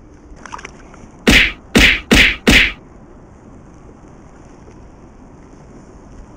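Four loud whacks in quick succession, starting a little over a second in, each about a quarter of a second long and coming closer together toward the end.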